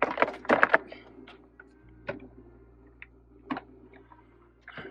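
Sharp plastic clicks and knocks in a quick run during the first second, then scattered single ticks: a 2006 Jeep Commander's interior door trim panel being lifted off the door after its clips are popped loose.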